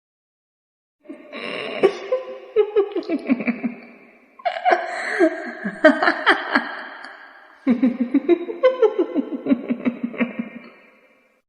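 Laughter sound effect: three bouts of rapid 'ha-ha' laughing, each about three seconds long and sliding down in pitch, starting about a second in.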